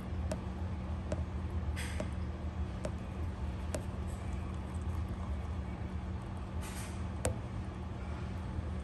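A steady low hum throughout, with quiet short clicks about once a second from a pet rabbit nibbling a piece of strawberry. Two brief rustles in the hay come about two seconds in and near the end.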